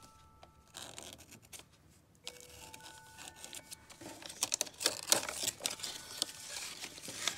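A paper envelope being slit open with a craft knife and handled: scratching and rustling of paper, starting about two seconds in and getting louder and busier as the envelope is pulled open.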